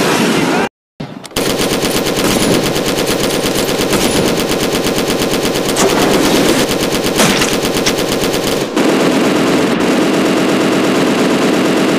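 Rapid, continuous machine-gun fire, a battle sound effect, cutting out briefly about a second in and changing pattern about nine seconds in.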